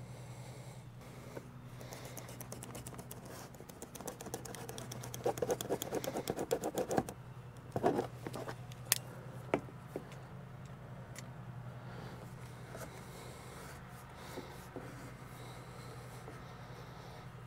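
Hands rigging fuel hoses into a fuel can: a run of fast, fine clicking and scratching from about two to seven seconds in, then a few separate sharp clicks, over a steady low hum.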